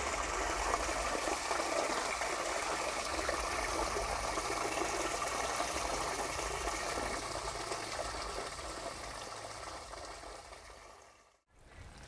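Steady rush of water from a submersible pump in a pond running just after being switched on, pumping the pond out through a PVC pipe. The sound fades over the last few seconds.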